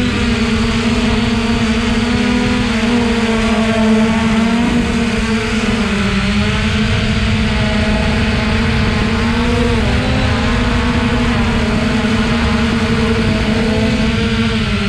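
Remote-controlled camera drone's motors and propellers whirring steadily in flight, several pitches held together and wavering slightly up and down as the throttle changes.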